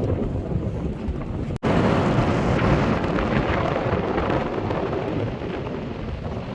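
Wind buffeting the microphone: a steady rumbling rush. It cuts out for an instant about one and a half seconds in and comes back louder.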